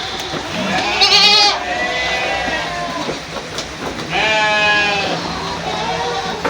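Goats bleating: a loud, quavering bleat about a second in and a longer one about four seconds in, with fainter bleats from other goats between them.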